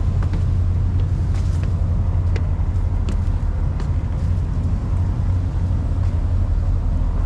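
Passenger boat's engine running with a steady low drone. A few light clicks and taps sound over it during the first half.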